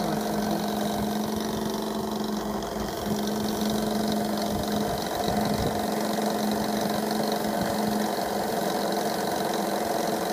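GF Mars model steam engine, fed by a Pendle steam boiler, running fast and steady under steam on a bench test, with a steady hum.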